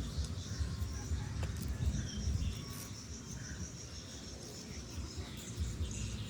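Insects chirping in a rapid pulsing trill, with a low rumble underneath.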